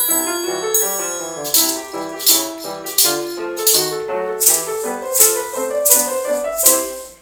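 A polka played by a noise orchestra: a melody of pitched notes with metallophone tones ringing high in the first second, joined by shakers struck on the beat about every two-thirds of a second. The music drops out briefly near the end.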